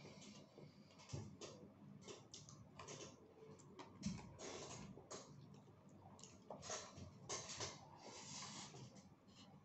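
Faint, close chewing and lip-smacking of a mouthful of rice and canned sardines eaten by hand: an irregular run of short wet clicks.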